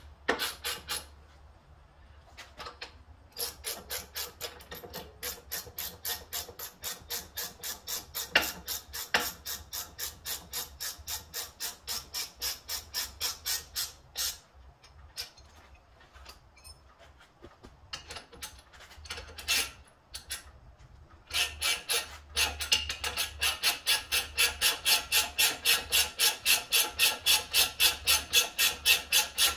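Hand ratchet clicking in quick, even strokes, about three clicks a second, as the upper ball joint and tie rod nuts are run down. It stops for several seconds midway, with a couple of single knocks, then starts again louder.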